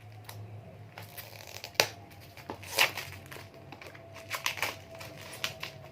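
Packaging of a boxed Bluetooth speaker being handled and opened: crinkling and rustling with scattered sharp clicks and taps, the sharpest about two seconds in and a louder rustle just after.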